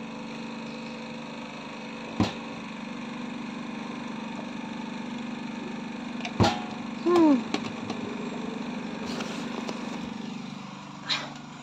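A steady, engine-like motor hum drones throughout. Two sharp clicks come about two and six seconds in, and just after the second there is a short falling "ahh" from a woman's voice as she finishes drinking from a plastic bottle.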